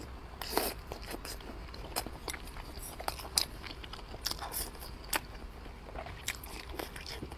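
Close-up eating sounds: biting into and chewing a braised wrapped pork roll with rice, a string of small, irregular wet clicks and crackles from the mouth.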